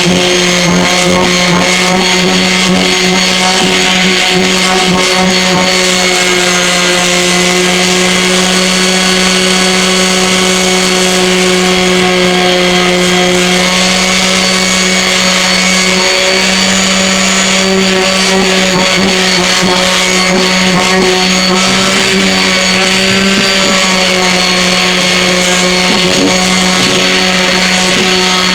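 Ryobi 2.6-amp 5-inch random orbital sander running steadily while sanding wood with a coarse 80-grit disc: a constant motor hum with a hiss of abrasion, its pitch shifting slightly a couple of times.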